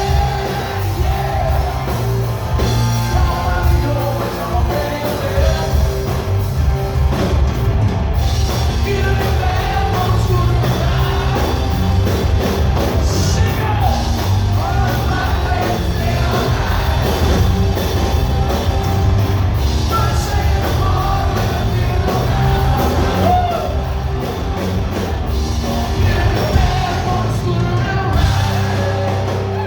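Live rock band playing loudly with a singer's voice over heavy bass.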